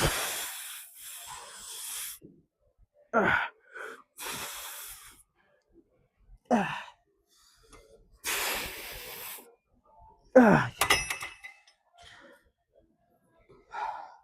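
A man's heavy, gasping breaths and short strained vocal groans that fall in pitch. About eleven seconds in there is a brief clatter of sharp clicks.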